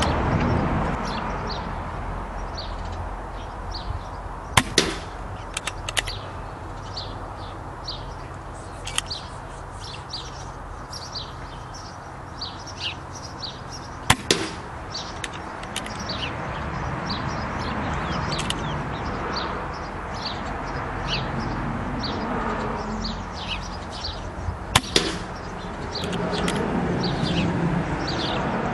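Three sharp cracks about ten seconds apart, each a .177 pellet shot from a Brocock Contour PCP air rifle hitting a cardboard target. Small birds chirp throughout.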